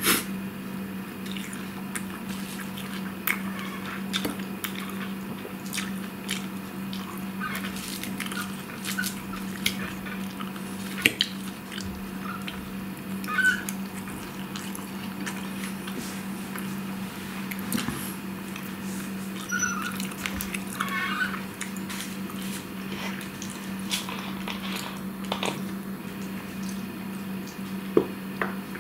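Close-up chewing and mouth noises of a person eating lettuce salad, with occasional sharp clicks of a fork, over a steady low hum. Near the end there is a sharper click as a plastic bottle is raised to drink.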